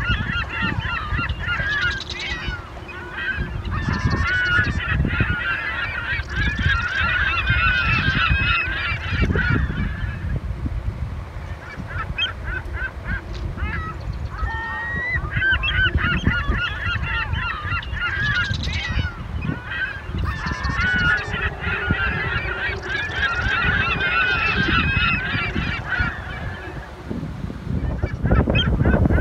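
A flock of birds calling, many overlapping calls in two long bouts with a thinner lull between them, over a steady low rumble.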